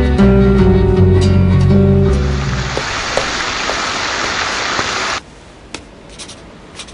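Background music for the first two to three seconds gives way to the steady splashing hiss of a fountain, which cuts off suddenly about five seconds in. After that, faint scratching of a pen on paper.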